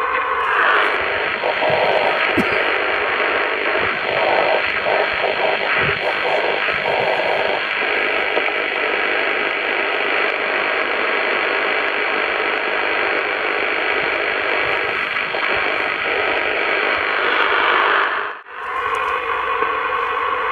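Steady hiss and static from a CB radio receiver tuned to upper sideband at 27.555 MHz, the receiver open while waiting for a reply. About 18 seconds in, the noise drops out for a moment and comes back.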